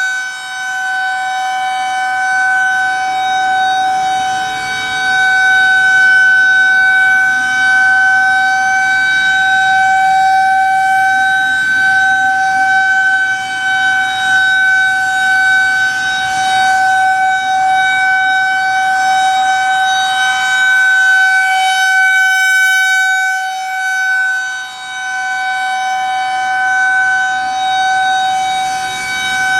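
Federal Signal 2001-130 rotating electromechanical outdoor warning siren sounding a steady tone during a test. The pitch holds level while the loudness swells and dips every several seconds.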